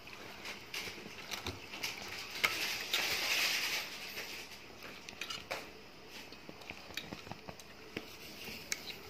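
A hand rubbing a wet spice-and-lemon marinade into raw mutton pieces in a metal bowl: soft squelching with scattered light clicks, and a louder stretch of wet rubbing about three seconds in.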